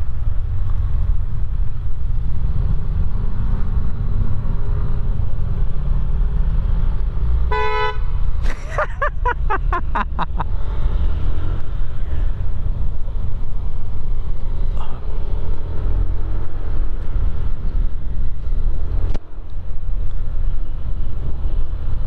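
Steady low rumble of wind and engine from a scooter riding along the road, with a vehicle horn beeping about eight seconds in, followed by a quick run of short honks over the next two seconds.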